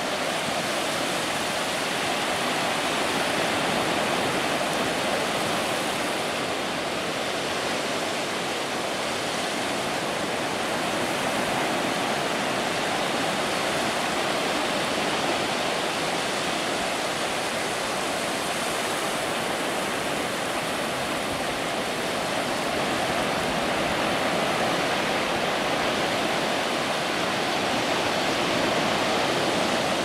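Pacific Ocean surf breaking and washing up a sandy beach: a steady rushing hiss that swells and eases gently every several seconds.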